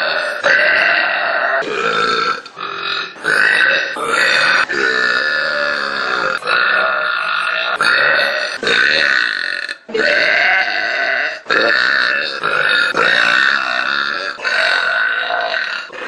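A young woman burping loudly, again and again: a long string of drawn-out, voiced burps, one after another with only short breaks between them.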